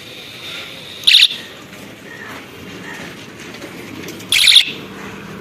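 Handlebar-mounted electronic bicycle horn sounding twice: short, high-pitched chirping beeps about three seconds apart, the second a little longer.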